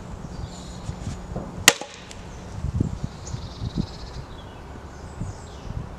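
An axe strikes a log once with a sharp crack about two seconds in, followed by a few dull low knocks as the axe is worked in the wood.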